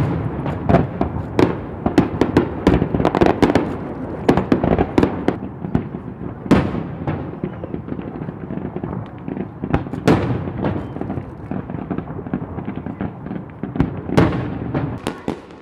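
Aerial fireworks display: a rapid barrage of shell bursts and crackling over the first several seconds, then single loud booms about six and a half, ten and fourteen seconds in, with crackling between them.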